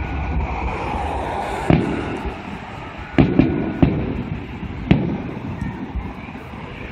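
Aerial firework shells bursting: five sharp bangs, starting a couple of seconds in and spread over about three seconds, over a steady background rumble.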